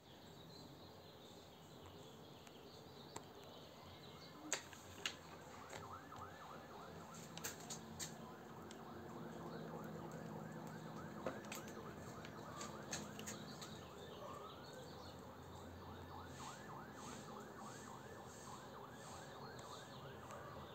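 Faint distant siren in rapid, repeating yelping sweeps, with a slower rising wail about two-thirds of the way through, over a low steady hum. A few sharp clicks stand out.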